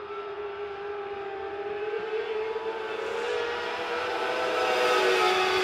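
Pack of Sharp mini late model race cars running at high revs on a dirt oval, growing louder as they come closer. The engine note rises slightly, then drops about five seconds in.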